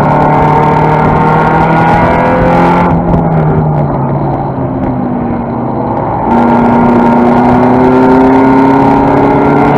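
Toyota Celica race car's 5S-FE four-cylinder engine running hard, heard from inside the stripped cabin. About three seconds in the throttle lifts and the engine note drops and dulls. Just past six seconds it comes back on throttle and climbs steadily in pitch as the car accelerates.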